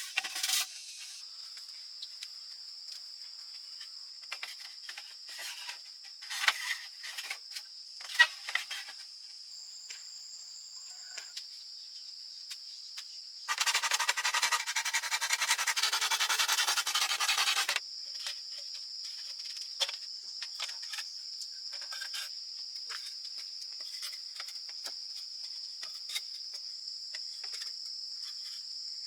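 Steady high-pitched insect chorus, with scattered light knocks and rustles. A loud rasping noise lasting about four seconds comes about halfway through.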